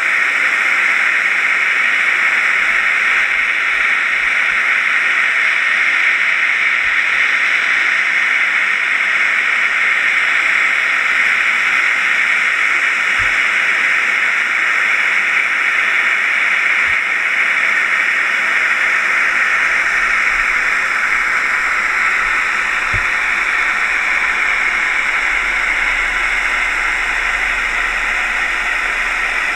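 Steady underwater hiss heard through a GoPro's waterproof housing, mounted on a scallop dredge being towed along the seabed. A few faint low knocks come through now and then.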